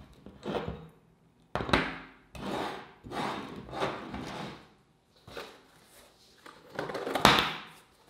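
Metal Independent skateboard trucks being picked up, turned over and set down on a tabletop: a series of clunks and scrapes. Cardboard rustles near the end as a box is lifted.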